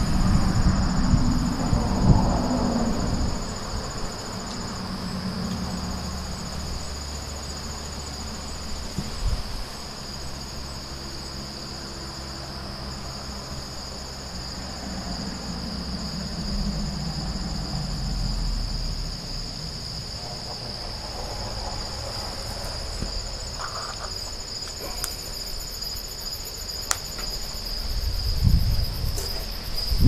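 Insects chirring in a steady high drone, with a low rumble at the start and again near the end.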